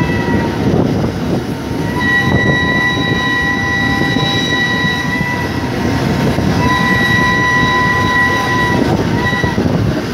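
A train whistle sounding in long steady blasts, with a short blast near the end, over the constant rumble and clatter of the moving train on the track.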